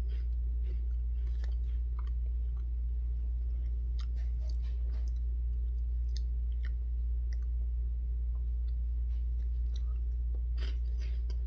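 Close-up chewing of crunchy cheese puffs: scattered small crunches and crackles, heard over a steady low hum.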